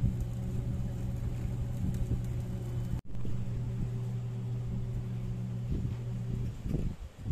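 Small electric blower fan fitted to a charcoal stove, running with a steady low hum that drops out for an instant about three seconds in and stops about six and a half seconds in.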